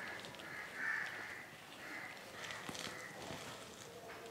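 A hand squishing and kneading a sticky flour-and-milk dough in a glass bowl, with faint soft squelches and clicks. Over it come three short, faint calls about a second apart, the first the loudest.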